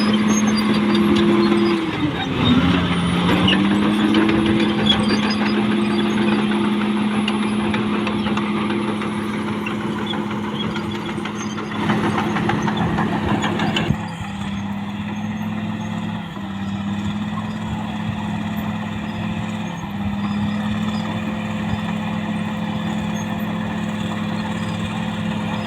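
Caterpillar D6R XL bulldozer's diesel engine running steadily. About two seconds in, its pitch sags for a moment and then comes back up, as when the engine takes a load. About halfway through, the sound changes abruptly, then runs steadily again.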